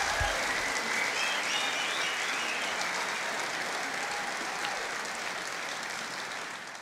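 Audience applauding after the final chord of the song, whose last low note dies away in the first second; a few short whistles rise above the clapping early on, and the applause fades out at the end.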